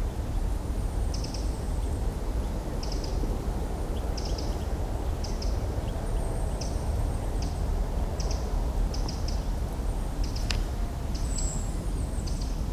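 Small birds chirping in short high calls about once a second, over a steady low background rumble. The rumble is the kind of unwanted drone that spoils a nature soundscape field recording. One sharp click about ten seconds in.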